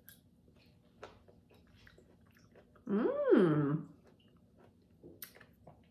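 A woman chewing a golden berry with faint wet mouth clicks, then humming one long "mmm" about three seconds in, its pitch rising and falling.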